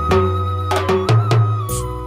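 Background music: a held melody over steady low tones, with regular drum hits.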